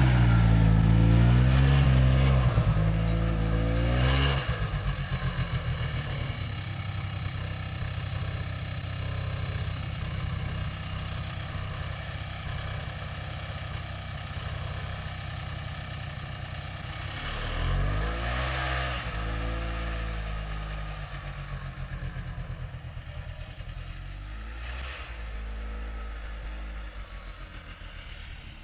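Chainsaw running under load as it cross-cuts a log, its engine revving up near the start and again about two-thirds of the way through, then easing off toward the end.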